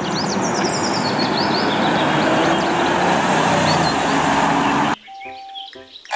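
Police SUV driving past on a street, a steady rush of engine and road noise that cuts off suddenly about five seconds in.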